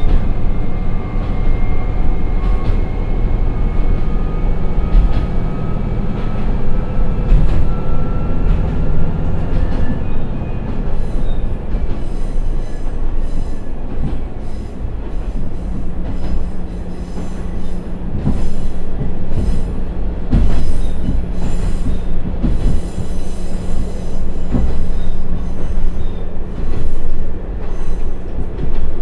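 Akechi 100 diesel railcar, with a Niigata DMF13HZ engine and TACN-22-1601 transmission, heard from inside while accelerating on the line: a steady engine rumble with a faint whine rising slowly in pitch over the first ten seconds, then a steady low engine tone from about halfway through, with scattered knocks from the wheels on the track.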